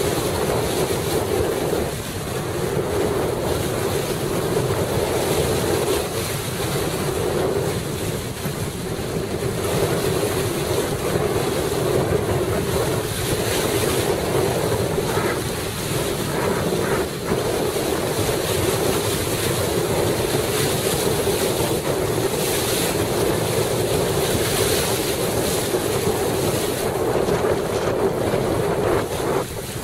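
Steady wind noise on the microphone over the rush and splash of water around a Laser sailing dinghy under way.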